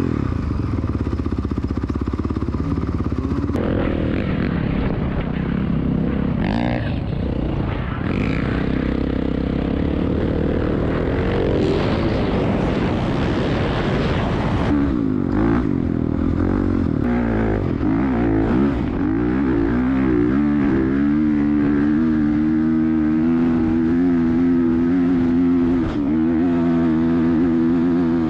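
Four-stroke Honda dirt bike engine running and revving while riding over sand, with wind noise on the microphone. From about twenty seconds in, the engine holds a steady high pitch as the bike climbs a dune.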